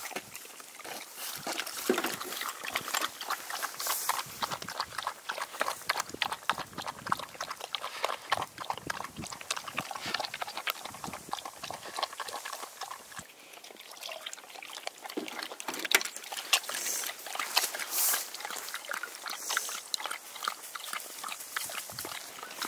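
A dog lapping milk from a glass bowl: a quick, steady run of wet laps and slurps.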